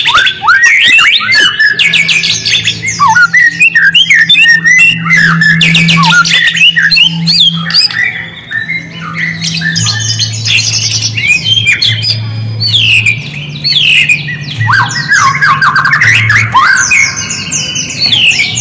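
White-rumped shama singing a fast, varied song of whistles, chatters and harsh squawky notes, played as a lure to set other shamas singing. A low steady drone that shifts between a few pitches runs underneath.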